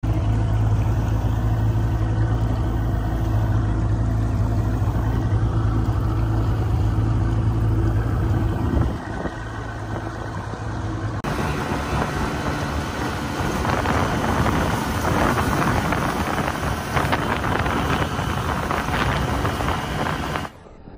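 Boat engine running steadily with a low hum, easing off about nine seconds in. After a cut, a noisier rushing sound of wind on the microphone and moving water, which stops abruptly near the end.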